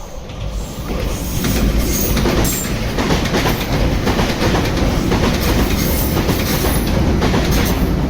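Meitetsu electric train passing close by, loud and steady after building over the first second or so, its wheels clattering over the rail joints.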